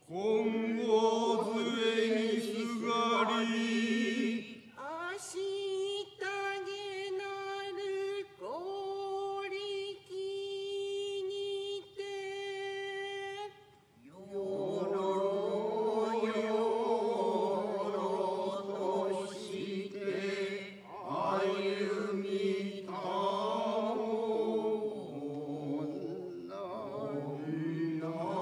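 Kanze-school Noh chanting (utai): slow intoned voices on long held, wavering notes. A single clearer line carries the middle stretch, and many voices chant together from about halfway through.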